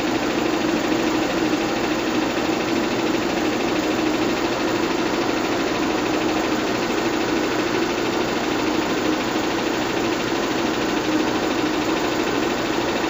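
Bell & Howell 122 LR 8mm film projector running at its highest speed: a steady mechanical whirr of its motor and film-advance mechanism, with a constant hum.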